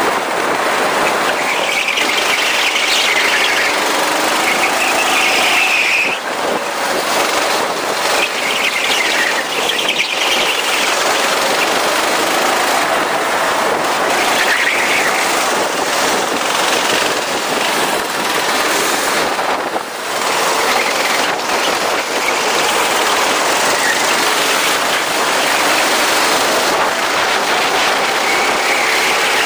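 Go-kart engine running on a track, its pitch rising and falling several times over a loud, steady rush of noise.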